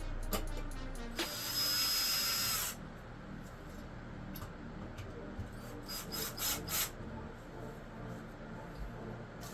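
Power drill/driver running for about a second and a half as it drives a long fixture mounting screw, with a steady high whine, then stopping. A few sharp clicks of handling follow.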